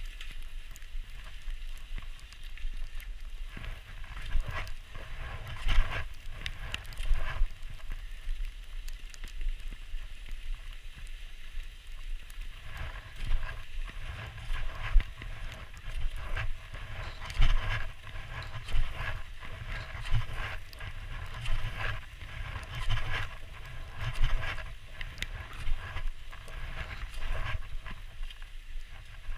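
Skis sliding over a snowy track, with irregular sharp clicks and knocks scattered throughout, over a low wind rumble on the microphone.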